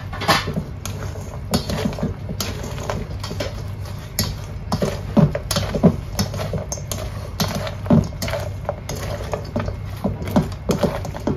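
A black serving spoon stirring and folding chunky tofu sisig in a stainless steel bowl: irregular scrapes and clacks of the spoon against the metal, several a second, over a steady low hum.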